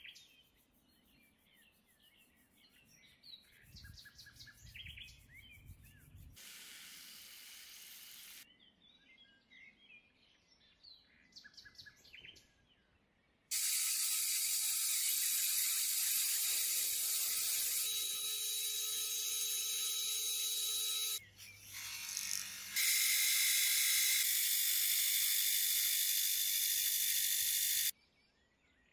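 Rotary wire wheel running against a thin steel rod held in a drill chuck, wire-brushing it clean: a loud, steady high hiss that starts suddenly about halfway in, breaks off for a moment, resumes slightly louder and cuts off suddenly near the end.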